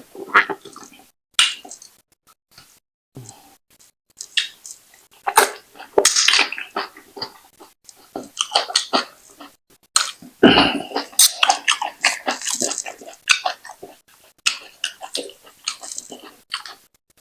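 Close-miked mouth sounds of eating fufu with slimy ogbono (draw) soup: wet chewing, smacking and slurping in irregular bursts, with one louder knock about two-thirds of the way through.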